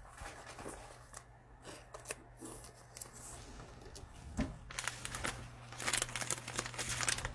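Quiet handling of trading cards: cards sliding and rubbing against one another with scattered light clicks, turning into a denser run of rustling scrapes about halfway through. A low steady hum runs underneath.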